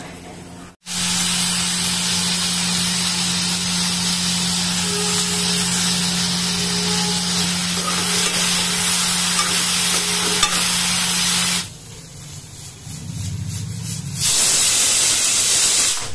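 Eggplant pieces sizzling steadily as they are stir-fried in an aluminium kadai, with a low steady hum underneath; the frying cuts off about twelve seconds in. Near the end, steam hisses loudly from a pressure cooker.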